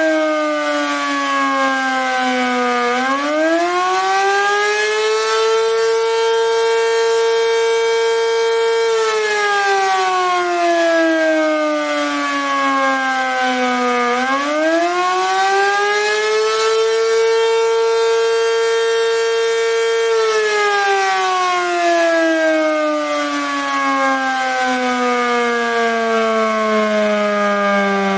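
ACA Banshee 115 outdoor warning siren sounding the attack signal: a single loud tone that rises over about two seconds, holds high for about six, then slowly falls. It goes through this cycle twice and is falling again near the end.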